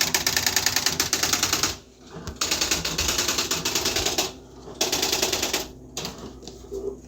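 Typewriter typing a label: three quick, even runs of key strikes with short pauses between them, then a few single clicks near the end.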